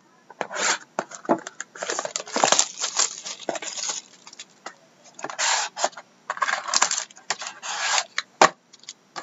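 Plastic shrink wrap crinkling and tearing as it is pulled off a sealed cardboard trading-card box, with scattered clicks and rubbing from handling the box.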